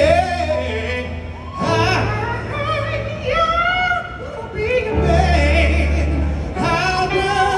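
Soul/R&B singing in long, wordless gliding vocal runs over a live band with held bass notes.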